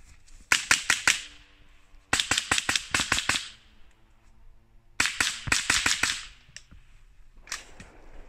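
A .22 rimfire minirifle fired semi-automatically in three quick strings of several sharp, light cracks each, about a second apart from string to string.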